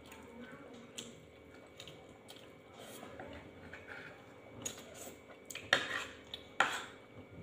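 Metal spoon clinking and scraping on a plate at a meal: scattered light clicks, then two louder clatters near the end.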